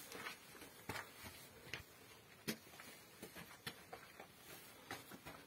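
Faint, scattered scuffs and light knocks, several over a few seconds, of people climbing and stepping on stone and earth into a small storage chamber.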